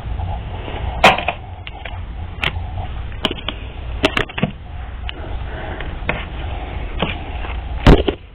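Cards being handled and shuffled: a string of irregular sharp clicks and slaps, the loudest about a second in and near the end, over a low steady hum.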